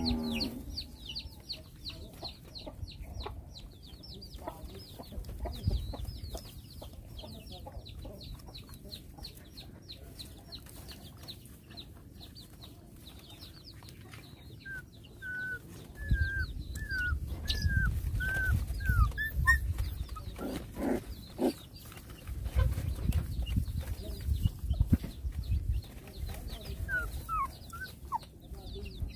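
Chickens in the background: a fast, steady run of high peeps, about four or five a second, through the first half, with a few higher squeaks later. Low rumbling bumps and rustling grow loud in the second half, close to the microphone.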